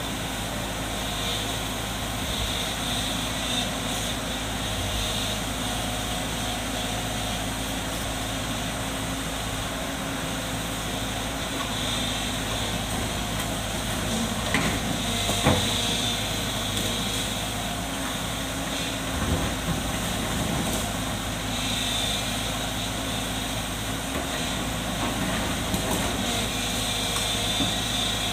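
JCB tracked excavator's diesel engine running steadily as its boom works, with intermittent high-pitched squeals and a sharp knock about halfway through.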